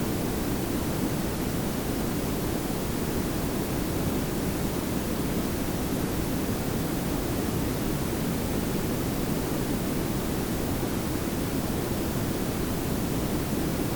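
Steady layered pink and brown noise: an even hiss over a deeper rumble, unchanging throughout.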